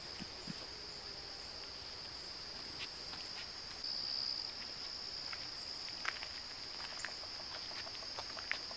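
Steady high-pitched insect chorus, briefly louder about four seconds in, with scattered faint ticks.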